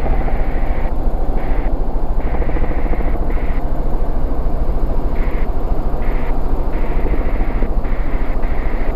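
Helicopter in flight: steady rotor and engine noise with a constant low hum.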